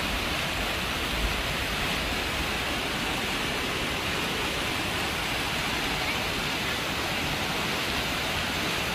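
Floodwater rushing down a street, a steady, even rush of water.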